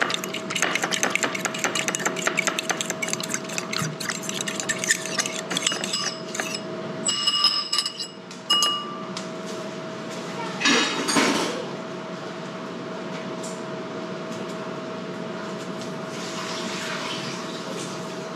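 Metal fork whisking egg wash in a ceramic bowl, a rapid run of clicks against the bowl for about seven seconds, then a few ringing clinks of metal on ceramic. A short rustle follows near the middle, over a steady hum.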